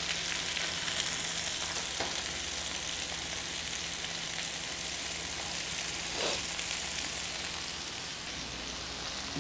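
Chicken breasts frying in a nonstick skillet, a steady sizzle, with one light tap about six seconds in. The chicken is still cooking, not yet up to 165 °F.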